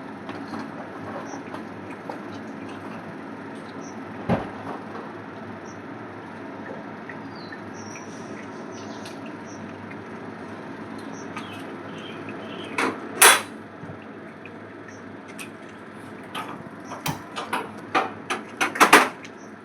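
Steady background noise with scattered sharp knocks and clicks: a louder knock about 4 s in, a loud double knock about 13 s in, and a quick run of knocks and clatters near the end.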